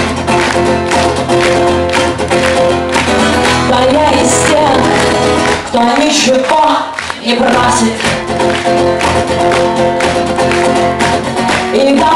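Live concert music: a strummed acoustic guitar with a band behind it, and a woman singing into a microphone. The low end drops away briefly about six seconds in, then the full sound comes back.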